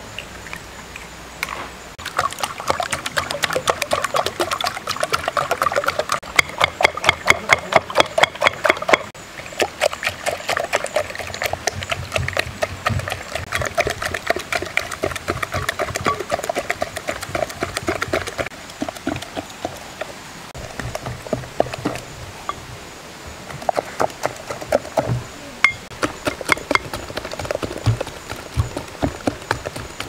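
A green plastic whisk beating eggs and sugar in a glass mixing bowl: fast, steady clicking strokes against the glass, with the bowl ringing, from about two seconds in. Past the middle the strokes thin out and come in short spells.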